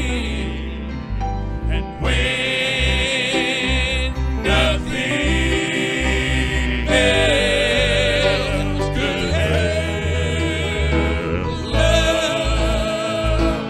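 Gospel hymn sung with held, wavering notes over instrumental accompaniment with a strong bass line.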